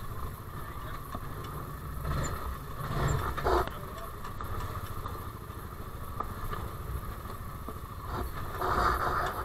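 Side-by-side UTV engine running at low speed while crawling over rocks. It gets louder in two rough surges, about three seconds in and again near the end.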